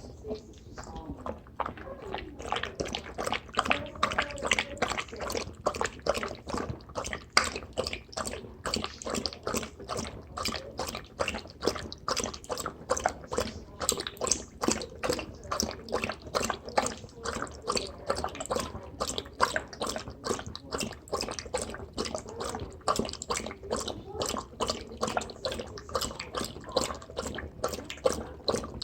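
Basset hound lapping water from a bowl: a fast, even run of wet splashing laps, about three or four a second, loud and sloppy.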